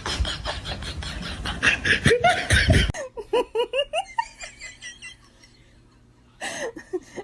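A person laughing in bursts. The sound changes abruptly about three seconds in to shorter pitched laughs, then goes quiet.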